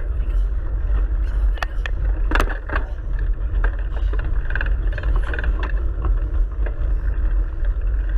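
Bike rolling fast over a muddy forest trail while towed by a dog: steady wind rumble on the handlebar camera's microphone and tyre noise, with a few sharp rattles from the bike about two seconds in.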